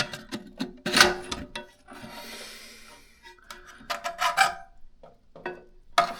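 Old plastic toilet fill valve being worked loose and pulled out of the tank: irregular scraping and rubbing with knocks, the loudest knock about a second in and another cluster of scrapes near the middle.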